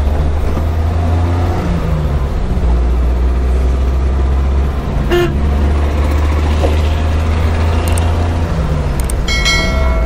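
Steady low drone of a vehicle's engine and road noise inside the moving cab. A vehicle horn gives one short toot near the end.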